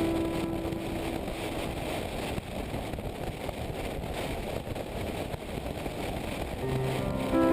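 Motorcycle riding on the road: a steady rush of engine and wind noise, with background music fading out about a second in and coming back near the end.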